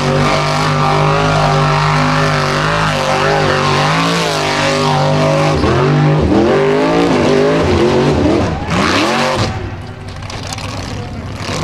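Formula offroad buggy's engine at full throttle on a steep dirt hill climb, held steady at first, then revving sharply up and down several times about halfway through before dropping off near the end.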